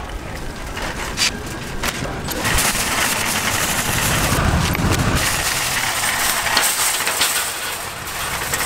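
Metal wire shopping cart rattling and clattering as it is pushed quickly over a store floor and then rough asphalt, its wheels rumbling and frame jangling.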